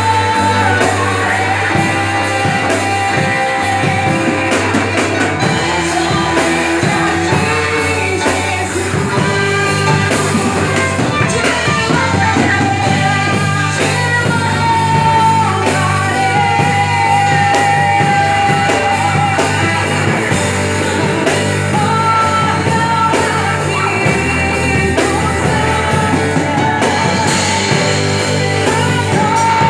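A gospel worship group performing a praise song: voices singing long held lines over a full band with guitar.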